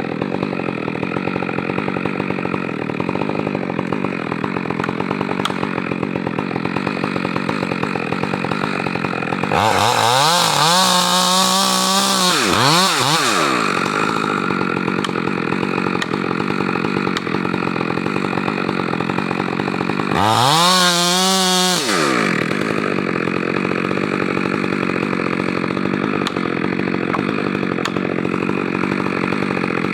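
Stihl 462 R two-stroke chainsaw running at a steady lower speed, twice brought up to high revs, for about four seconds near the middle and about a second and a half later on, its pitch wavering while at speed.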